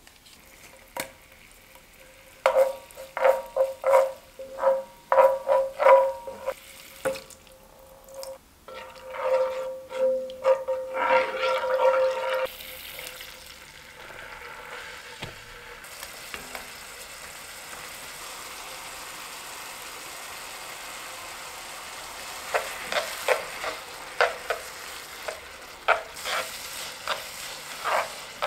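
Stir-frying in a pan: about ten seconds of a utensil scraping and striking the pan with a ringing tone, then a steady sizzling hiss as the liquid cooks, and near the end more clicking strokes as chopsticks toss noodles in the pan.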